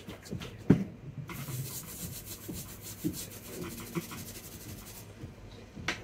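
Handling noise at a repair bench: a sharp knock just under a second in, then several seconds of fast, scratchy rubbing strokes with a few light knocks.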